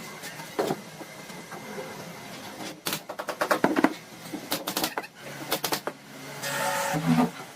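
Woodworking sounds: irregular clicks and knocks of wood and tools being handled, with a louder hissing burst about a second long near the end.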